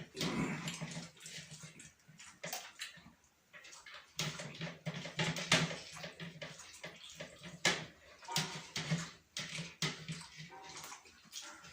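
Wet chewing and lip-smacking of people eating chicken biryani, a dense run of short, irregular clicks.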